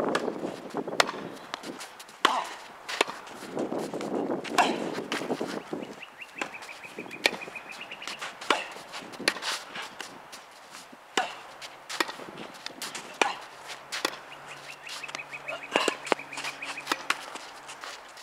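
Tennis rally on a hard court: sharp pops of the ball coming off the racket strings and bouncing on the court, irregularly about once a second. Twice, a rapid high chirping trill runs for a couple of seconds in the background.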